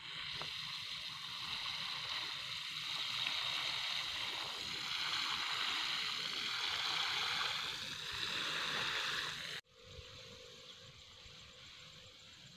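Water spraying from the sprinkler roses of metal watering cans onto dry soil and seedlings, a steady hiss. It cuts off suddenly near the end, leaving only faint outdoor background.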